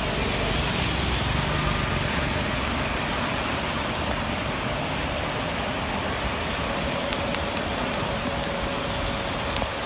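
Heavy rain falling steadily, with cars driving past on the wet road and their tyres running through the water.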